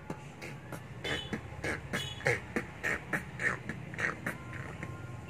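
A 12-year-old boy beatboxing with his hands cupped over his mouth: a steady rhythm of mouth-made kick, snare and hi-hat sounds, about three strokes a second, over a low hum.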